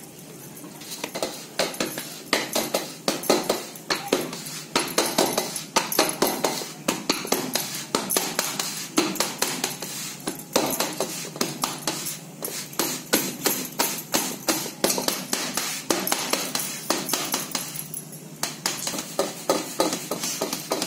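Hands patting and pressing jowar-and-rice flour dough flat into a bhakri on a flour-dusted steel plate: a quick, rhythmic run of soft slaps and taps that starts about a second in, with a short break near the end.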